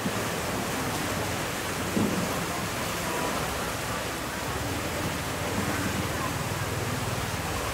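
Steady rush of turbulent water pouring through a concrete dam outlet channel.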